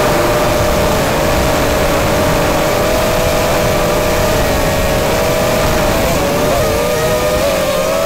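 Small quadcopter's electric motors and propellers whining steadily in flight, heard from the drone's own camera along with wind rush; the pitch wavers a little from about six seconds in as the motors change speed.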